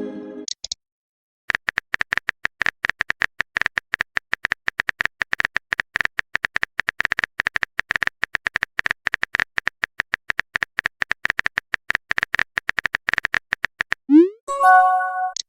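Rapid, steady clicking of a phone-keyboard typing sound effect, each click with a slight ring. Near the end a short rising swoosh and a brief pitched chime sound, like a chat message being sent.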